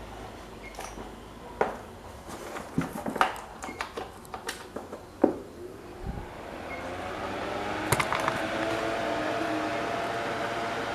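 A few light clicks and knocks, then about six seconds in the restored box fan's electric motor starts and spins up to a steady run, its hum rising slightly in pitch as it comes up to speed.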